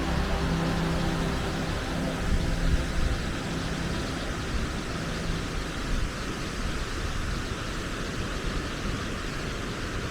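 A steady, loud rushing noise with no distinct events. Faint held musical tones sound under it and fade out about halfway through.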